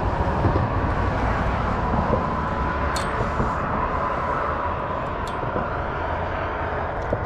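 Steady outdoor rumble with a faint engine-like drone running through it, and two brief faint high clicks about three and five seconds in.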